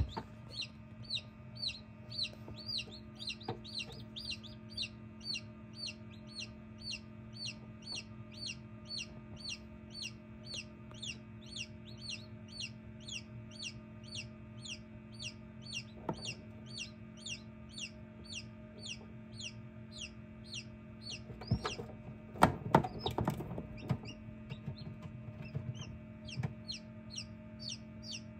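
Newly hatched chicks peeping inside an egg incubator: a steady run of short, high, falling peeps about twice a second over the incubator's steady low hum. A few loud knocks come about 22 seconds in.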